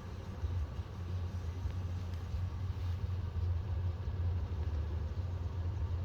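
Strong wind buffeting the microphone: a steady, rough low rumble.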